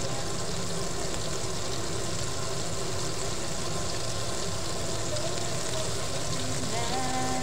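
Coated chicken pieces frying in hot oil in a pot, a steady sizzle with fine crackling, over a steady low hum.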